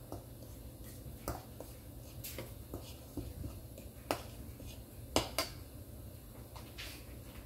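A spoon clinking and scraping in a mixing bowl while a flour-and-cornstarch batter is stirred: about seven separate sharp clicks, the loudest about five seconds in, over a low steady hum.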